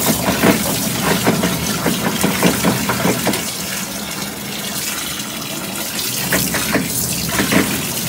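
Water from a shower hose running into the wash tub of a twin-tub portable washing machine, filling it and splashing among the clothes.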